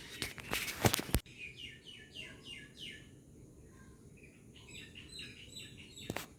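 A few sharp clicks and knocks of handling in the first second. After them, a bird chirping in runs of quick falling notes, with another click near the end.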